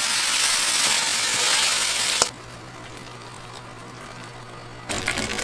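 Cooking food sizzling: a loud, steady hiss that cuts off abruptly about two seconds in. After a quieter stretch with a low steady hum, it returns as crackling and sizzling near the end.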